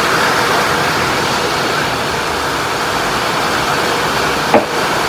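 Steady rain, an even rushing hiss, with one short sharp click about four and a half seconds in.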